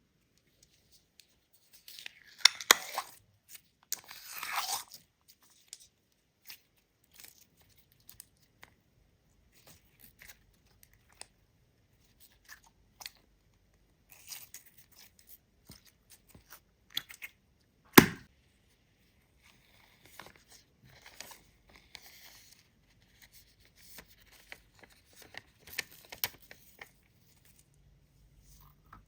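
Clear slime being stretched and mixed, making sticky crackling and clicking, with a loud crackly stretch near the start and one sharp pop about two-thirds of the way in.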